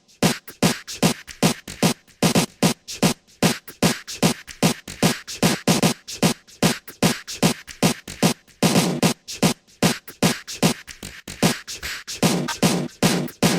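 Hardstyle music: a fast electronic drum beat of punchy kick drums that drop in pitch, with sharp hi-hat and clap hits between them.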